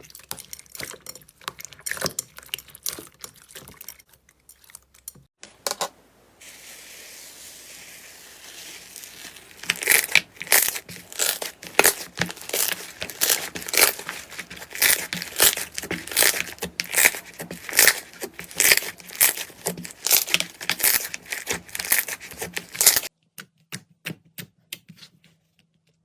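Slime being squeezed, poked and pulled, giving a dense run of sharp crackles and sticky pops. The sound breaks off suddenly twice, about five seconds in and near the end.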